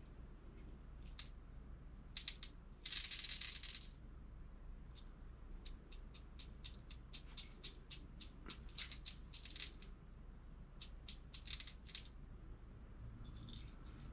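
Copper-plated No. 6 lead shotgun pellets clicking and rattling as they are handled and dropped, many separate small clicks with a brief dense rattle about three seconds in.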